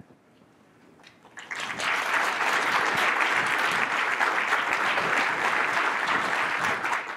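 Audience applauding in a lecture room. The clapping starts about a second in, swells over half a second, holds steady, then cuts off suddenly near the end.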